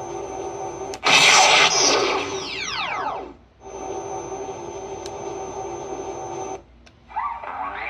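Proton pack sound effects from an upgraded Frankengeek sound board, played through a larger speaker. A steady electronic idle hum is interrupted about a second in by a loud hissing blast that falls away in several descending sweeps. The hum then resumes, cuts out near the end, and rising sweeps of a power-up start.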